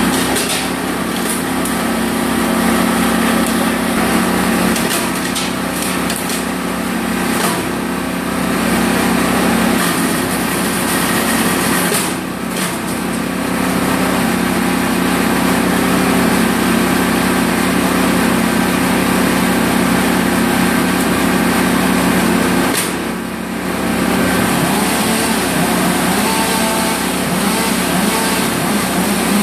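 Petrol garden branch chipper-shredder running steadily while leafy branches are fed into its hopper, with short crackles as they are chewed up. The engine sound dips briefly twice, about twelve and twenty-three seconds in.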